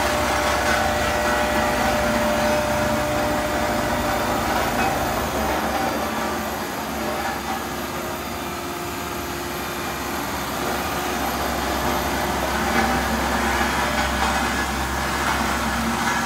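Caterpillar CS66B single-drum roller's diesel engine running steadily. It gets a little quieter through the middle and comes back up toward the end.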